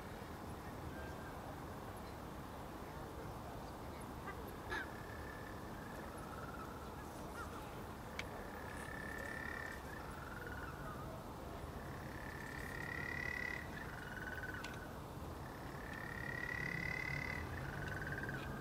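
Little penguins calling: short, high, slightly rising calls repeated every second or two from about seven seconds in, over a steady background hiss.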